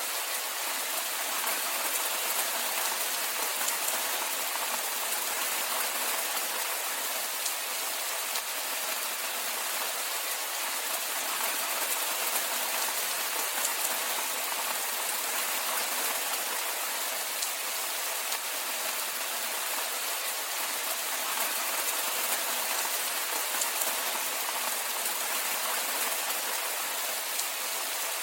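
Steady rainfall: a dense, even hiss of rain with scattered drops ticking, with no change in strength.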